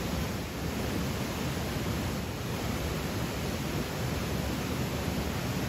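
A stream flowing: a steady rushing of water with no separate events.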